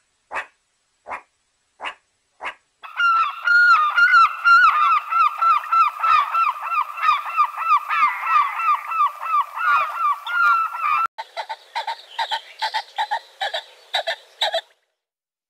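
Short separate yapping calls of a ring-tailed lemur. From about three seconds in, a flock of gulls calls over one another in a dense chorus that cuts off abruptly about eleven seconds in. Then a peacock gives a run of repeated calls, about three a second.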